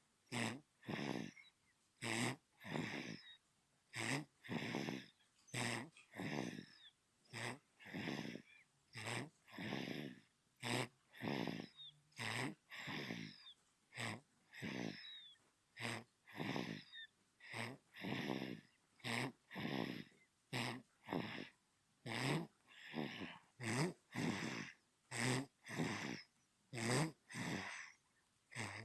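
Sleeping newborn baby snoring: quick, regular snuffly breaths, about one and a half a second, each a short wheezy snore with brief silences between.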